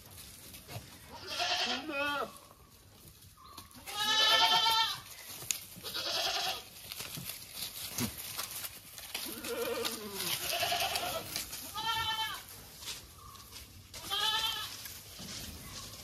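Goats bleating: a string of about eight wavering, quavering calls at differing pitches, from more than one animal.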